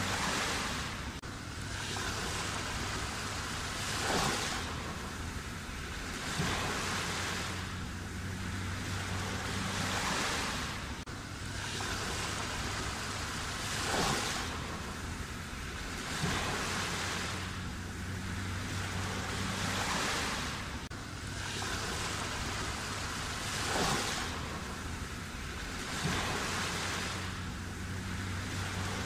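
Black Sea waves washing onto the shore, each wave swelling and fading about every two seconds. A low steady hum comes and goes beneath them.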